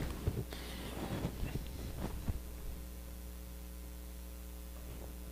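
Steady low electrical mains hum, with faint rustling and small knocks over the first two and a half seconds as a hand reaches across a wooden demonstration board.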